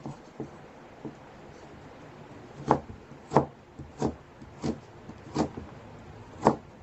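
Kitchen knife chopping carrot into chunks on a cutting board: a series of sharp knocks, a few light ones in the first second, then six louder chops about two-thirds of a second apart.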